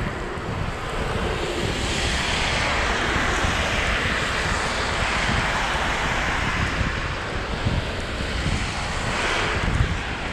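Wind rushing over a bike-mounted camera's microphone while cycling, with tyre hiss on the wet, slushy road; the rush swells a couple of seconds in and again near the end.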